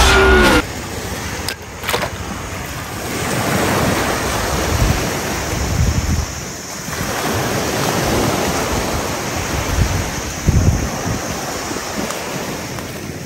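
Small waves breaking and washing up a sandy beach, a steady rush of surf that swells and eases, with wind buffeting the microphone.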